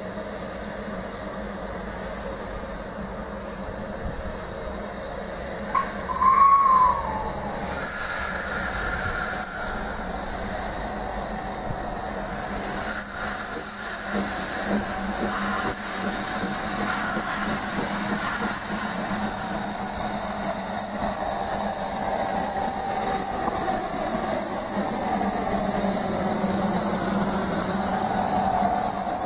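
Narrow-gauge steam locomotive No. 190 Lyd, a 2-6-2 tank engine, moving slowly with steady hissing steam from its open cylinder drain cocks. A short whistle blast with a falling pitch sounds about six seconds in, the loudest moment.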